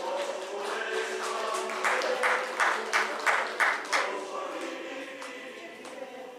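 A group of voices singing together, with about seven hand claps in an even beat, roughly three a second, from about two to four seconds in; the singing then fades.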